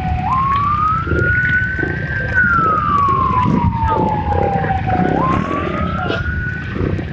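Wailing siren sweeping slowly up and down over a low rumble of engines. The tone jumps up, climbs for about two seconds, then glides down for about three; the cycle runs through twice and the siren stops near the end.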